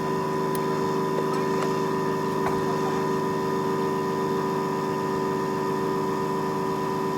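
A motor running steadily with an even, pulsing hum, with a few faint metallic ticks about a second apart early on.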